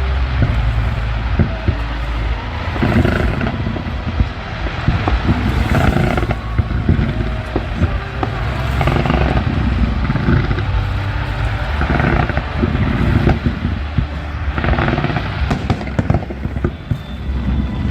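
Fireworks display: shells bursting in a continuous barrage of deep booms and rumbling echoes, with crackling effects and louder bursts every second or two.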